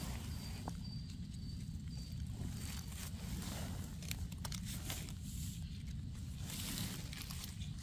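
Irregular rustling and steps in forest leaf litter, about one a second, over a steady low rumble.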